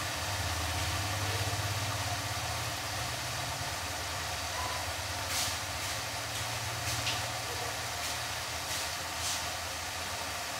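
Covered pot cooking on a stove: a steady low hum and hiss, with a few short hissing spits near the middle and toward the end.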